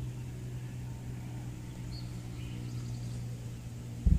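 A steady low hum, with a couple of faint bird chirps about halfway through and a loud bump near the end.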